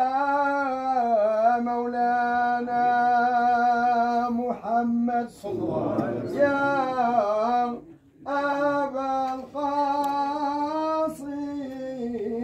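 Unaccompanied male voice chanting a Sufi devotional melody in long held notes that bend at the start of each phrase, with short breaks for breath about four and a half and eight seconds in.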